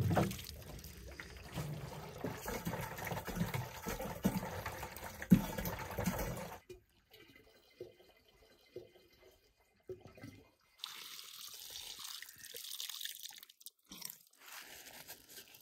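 Water from a hose pouring into a plastic jerrycan as it fills. The pouring stops suddenly about six and a half seconds in, and water runs again more faintly in the last few seconds.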